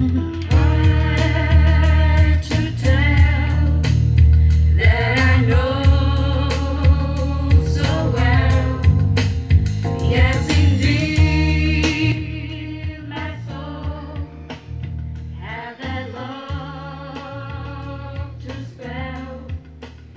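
A slow song with singing over a heavy bass line, played on a vintage hi-fi: handmade loudspeakers driven by a JVC RX-212 receiver through a Sansui SE-3100 graphic equalizer that is switched on, bringing the vocal forward. Louder for the first twelve seconds or so, then softer.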